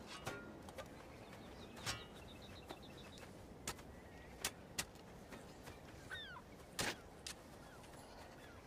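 A spade striking and cutting into grassy turf several times at an irregular pace. Birds call in the background: a quick run of short high chirps early on and a couple of gliding calls later.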